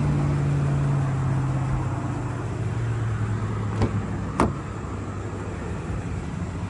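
Two sharp clicks, the second louder, about four seconds in, as a 2012 Toyota Tundra's outside door handle is pulled and the latch releases to open the door. Under them a steady low engine hum, strongest for the first two or three seconds, then easing off.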